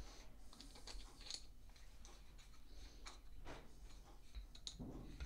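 Faint, irregular small clicks and scrapes of a screwdriver turning small screws into a steel type-casting mould, tightening them down to fasten the mouthpiece.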